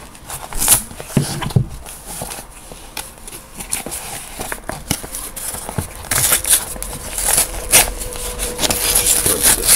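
Mailing envelope being opened and its contents pulled out: irregular paper rustling and crinkling with scattered sharp crackles, busier in the second half.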